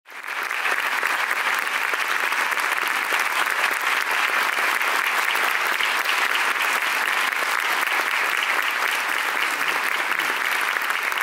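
Audience applauding steadily. It fades in quickly at the start.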